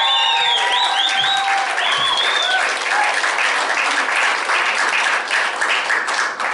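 Comedy club audience clapping and cheering to welcome a comedian onto the stage. A few high whoops rise and fall over the clapping in the first two seconds.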